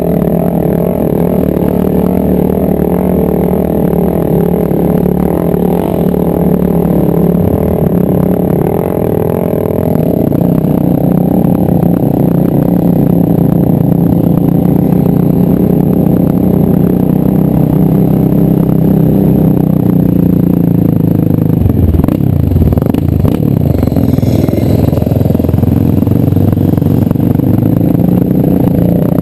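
Yamaha Raptor quad's single-cylinder four-stroke engine running under throttle while being ridden over sand, its pitch rising and falling with the throttle. About two-thirds of the way in, rattles and knocks come from the quad jolting over rough ground.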